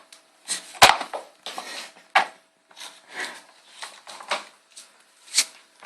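Dustpan clattering and scraping on a hard floor: an irregular run of short knocks and scrapes, the sharpest about a second in and again about two seconds in.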